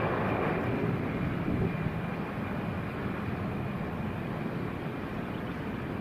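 Airbus A320-200's jet engines running on the runway: a steady high fan whine over a low rumble, easing slightly after the first couple of seconds.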